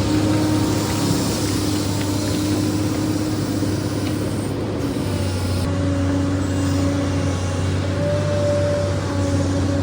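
SANY excavator's engine running steadily while it digs, with a droning hum and a whine that shifts slightly in pitch.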